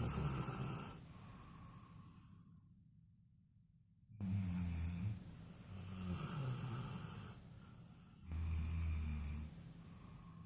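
Golden retriever snoring loudly in deep sleep, with a long snore about every four seconds, three in all.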